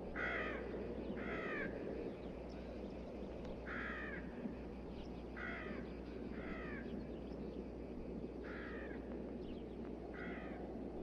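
Crows cawing from a film soundtrack: about seven short caws, mostly in pairs about a second apart, over a steady low background hiss.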